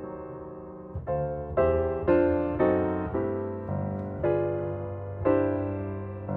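Background piano music: slow chords struck about every half second, each left to ring and fade.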